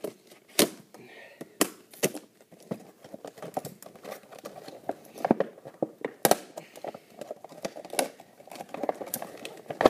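Hard plastic blister packaging crackling and crinkling as it is pried and torn open by hand, with irregular sharp snaps and clicks.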